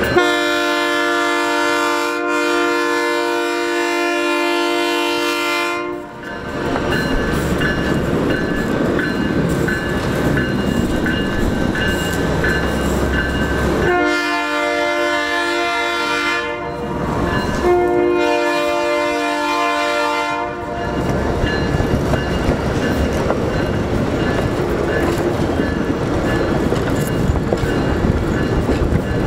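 Diesel locomotive horn sounding one long blast of about six seconds, then two shorter blasts in the middle, over the steady rolling and clickety-clack of retired R32 subway cars being towed past at low speed.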